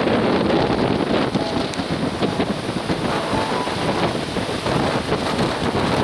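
Sea surf breaking and washing over shoreline rocks, mixed with wind buffeting the microphone, as a steady, loud rush.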